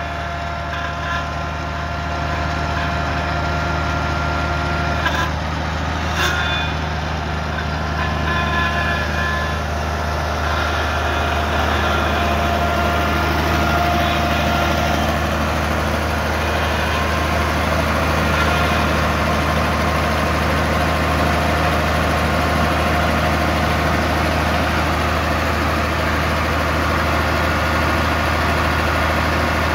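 Minneapolis-Moline G1050 tractor's six-cylinder LP-gas engine idling steadily.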